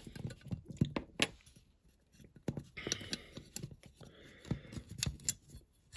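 Scattered small clicks, taps and scrapes of a die-cast metal model car body being handled as a door piece is worked off its locating pins, with two short spells of scratchy scraping about three and five seconds in.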